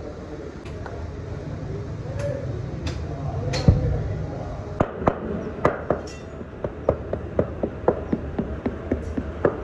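Metal casting pattern in a sand mould being rapped with a hand-held block in quick, light, even taps, about four a second, to loosen it from the sand before it is drawn. A single heavier knock comes shortly before the tapping starts, over a steady low rumble.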